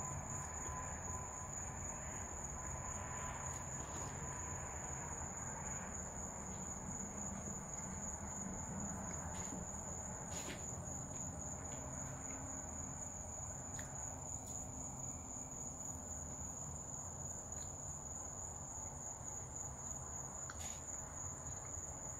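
Steady, unbroken high-pitched trilling of night insects, with faint chewing and a few small clicks underneath.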